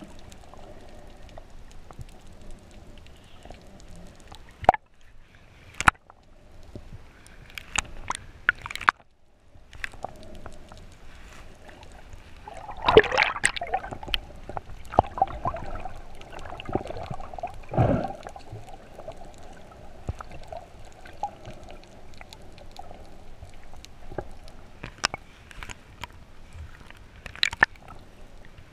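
Underwater sound from a snorkeller's camera swimming and kicking fins over a coral reef: muffled water gurgling and sloshing against the housing, with many scattered sharp clicks and splashes, busiest around the middle. A faint steady hum runs under the water noise from about halfway through.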